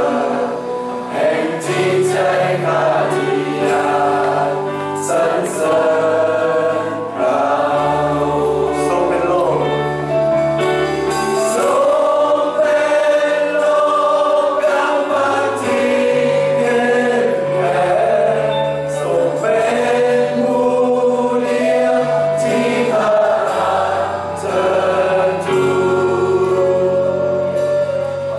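Live worship song: a group of voices singing together, led by a singer and backed by a band of guitars and bass.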